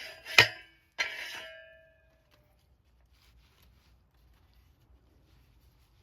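Two sharp metallic clanks from a homemade steel tool cut from an old shovel blade, each leaving a short ringing tone, in the first two seconds; after that, near silence.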